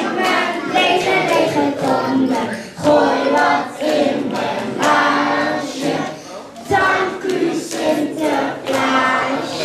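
A group of children singing a song together, in phrases with a short break partway through.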